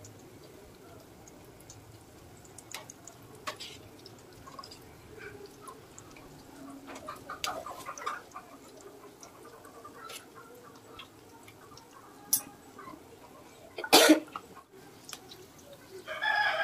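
Khaja pastries deep-frying gently in oil in a steel kadai, a faint steady sizzle at medium heat. A steel spoon clinks against the pan now and then; the loudest clink comes about fourteen seconds in. A short pitched call is heard right at the end.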